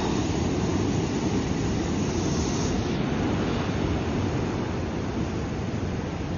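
Ocean surf, a steady rushing wash of waves over rocks with no distinct breaks, a little hissier for a moment around the middle.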